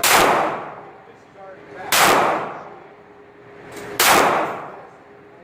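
9mm pistol fired three times, about two seconds apart, each shot with a long echoing decay.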